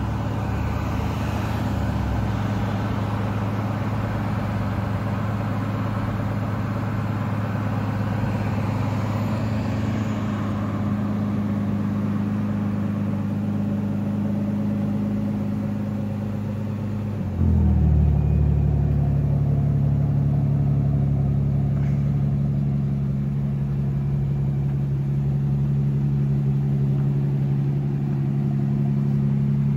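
Aston Martin DBS Volante's twin-turbo V12 idling steadily. About two-thirds of the way in, the note changes abruptly, growing louder and deeper, then settles into a steady idle again.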